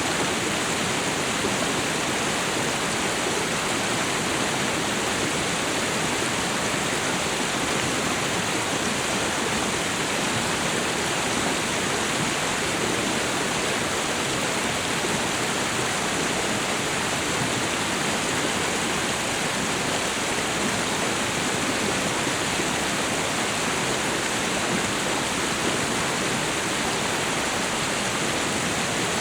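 Waterfall and river water falling and rushing in a steady, unbroken wash of noise.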